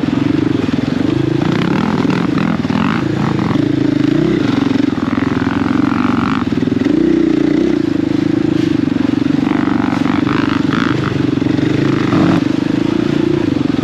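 KTM 500 EXC-F single-cylinder four-stroke enduro motorcycle engine running under load while being ridden, its note rising and falling continuously with the throttle.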